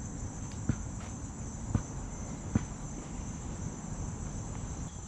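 Steady high-pitched insect chorus, with a few footsteps through brush and weeds about a second apart in the first half.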